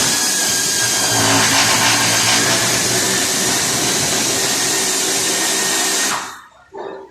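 A power tool runs at full speed for about six seconds, starting suddenly and winding down near the end, a harsh noise with a steady high whine over it.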